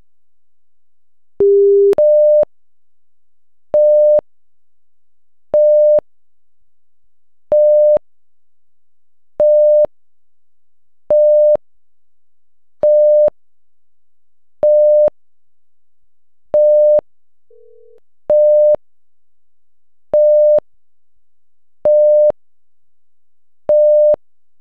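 Seismic monitor's electronic alert tones: one lower beep, then a higher beep of under half a second repeating about every two seconds, signalling that the seismograph has triggered on an earthquake's arriving waves.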